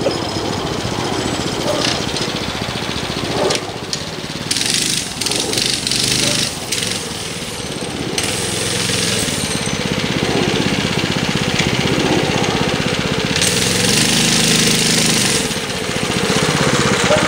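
Small single-cylinder mini bike engine running with a rapid chugging beat, its pitch rising briefly about fourteen seconds in as the throttle is opened, with a burst of hissy noise at the same moment.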